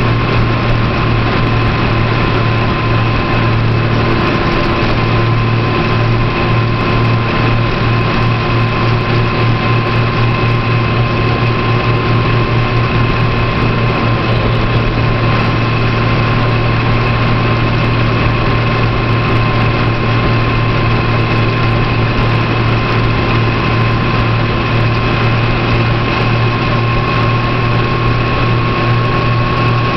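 Vehicle engine and road noise at a steady cruising speed: a constant low engine hum with a thin, steady high whine, the pitch holding level throughout.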